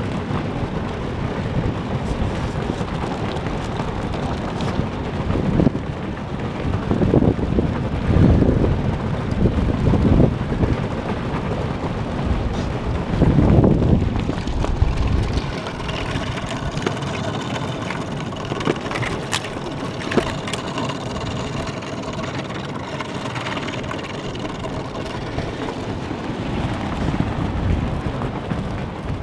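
Thin lake ice cracking and grinding against the bow of a PVC inflatable boat as it pushes through, with gusts of wind on the microphone in the first half. From about halfway, ringing, tinkling tones from the ice sheet and the broken pieces sliding across it take over.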